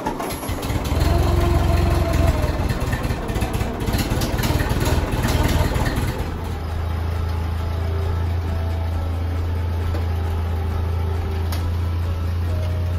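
1949 Ford 8N tractor's four-cylinder flathead engine, just started, running loud and uneven for about six seconds, then settling into a steady idle.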